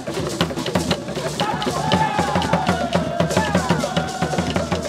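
Traditional hand drumming, fast and steady, with dense even strokes. From about a second and a half in, several voices sing over the drums with wavering pitch.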